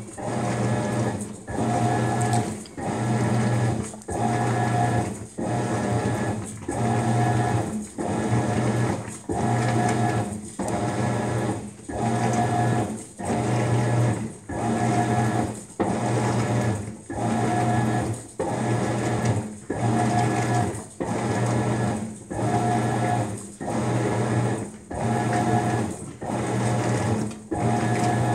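Maytag MVWX655DW1 top-load washer agitating a load in its deep water wash. The motor drives the clothes back and forth in even strokes a little over a second apart, each stroke a low hum with a whine above it.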